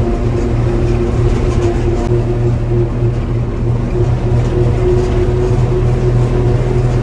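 Mitsubishi bus engine running steadily under way, a constant low drone with road noise, heard from inside the cabin.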